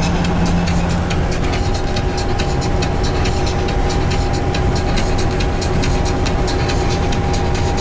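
Steady engine drone and road rumble inside a large vehicle's cab at motorway speed, with a constant whine over the rumble and faint rapid clicking rattles.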